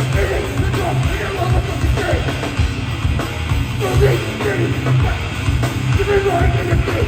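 Live hardcore band playing loudly: heavy distorted guitars, bass and drums in a dense, steady wall of sound.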